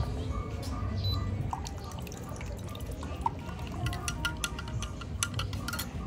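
Espresso trickling from a shot glass into a glass measuring jug, then a quick run of sharp glassy clinks in the last couple of seconds as ice cubes go into the jug.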